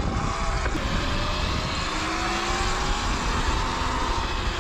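Wind rushing over the camera microphone while riding a Sur-Ron electric dirt bike, with the thin whine of its electric motor slowly rising in pitch as it picks up speed.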